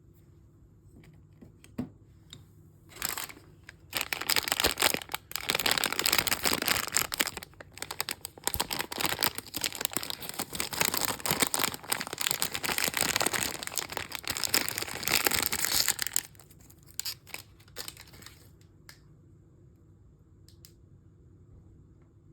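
Mystery-bag packaging crinkling and tearing as it is opened by hand, a dense crackle that starts about three seconds in and stops about sixteen seconds in, followed by a few light clicks.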